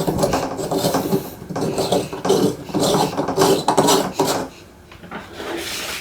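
Scraping and rattling handling sounds: hard objects rubbing and knocking against each other, easing off about four and a half seconds in.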